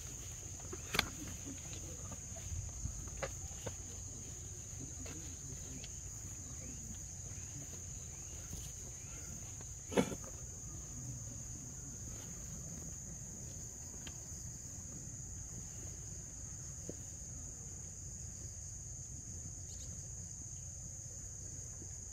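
Insects droning steadily in one constant high-pitched tone, with a sharp knock about a second in and another about ten seconds in.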